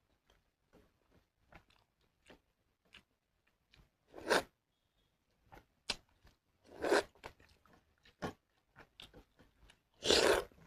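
Close-miked eating of pakhala bhata with fried mushroom: steady chewing with many small mouth clicks, and three louder mouthfuls about two and a half seconds apart.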